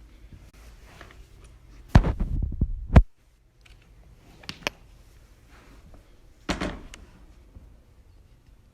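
Handling noises: a loud rattling knock lasting about a second that ends in a sharp click, then two quick sharp clicks, then a single thump near the end.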